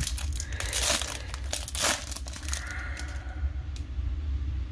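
Foil wrapper of a 1991-92 Pro Set Platinum hockey card pack crinkling and tearing as it is ripped open. The crackling is loudest in the first two seconds, with sharp snaps near one and two seconds in, then turns into quieter handling.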